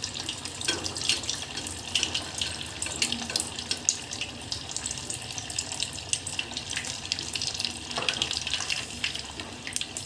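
Vermicelli-coated potato-paneer nest deep-frying in hot oil in a kadai: a steady sizzle with dense crackling as the oil bubbles around it.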